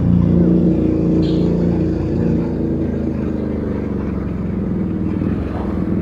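Exhaust note of a Keeway SCR 250's single-cylinder engine running through an aftermarket Rez Speed exhaust on the move, a steady note with a full, rounded sound.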